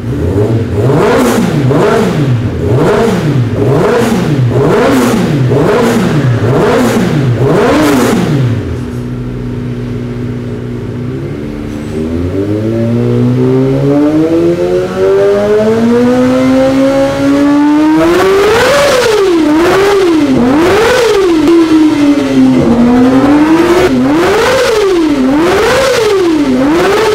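A Kawasaki Ninja inline-four sport bike engine, breathing through an Akrapovic full-system exhaust, is revved by hand while the bike stands still. First comes a string of quick low-rpm throttle blips at about one a second, then a few seconds of idle. After that comes a long, steady climb to high rpm and a run of sharp high-rpm blips near the end.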